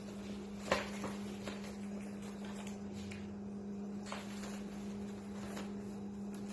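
A litter of puppies nursing from their mother and jostling: scattered small clicks and rustles, the sharpest just under a second in, over a steady low hum.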